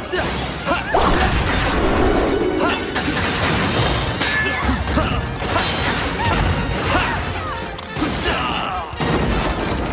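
Action-show fight soundtrack: background music under repeated hit, crash and whoosh sound effects.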